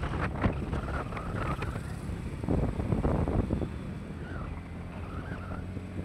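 Motorcycle engine running with wind buffeting the microphone, with a few sharp knocks in the first couple of seconds.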